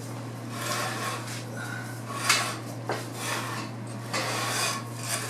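Wooden blocks being scraped and shuffled into place under a car body, with a couple of sharp knocks of wood set down about two and three seconds in, over a steady low hum.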